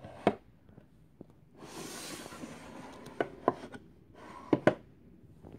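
A small painted drawer of a vanity being handled: a light knock, then a rubbing slide about two seconds in, then a few sharp clicks and knocks.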